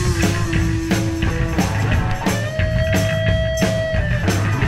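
Rock music with guitar and a steady drum beat, with one long held guitar note in the second half.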